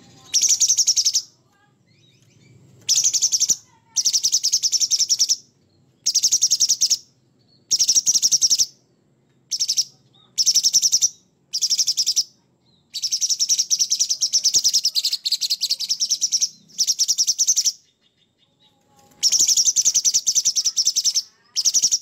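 Orange-bellied leafbird (cucak cungkok) singing vigorously in harsh, rough phrases: about a dozen rapid, high chattering bursts, each half a second to two seconds long, separated by short pauses.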